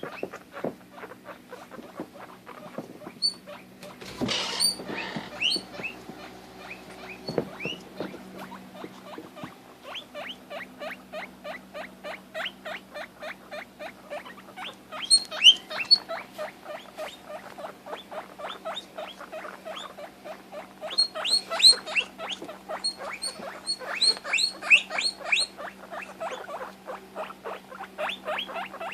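Guinea pig calling over and over in short squeaks, several a second, with louder high-pitched wheeks breaking in now and then. These are the calls of a guinea pig upset at not being able to see its cagemate.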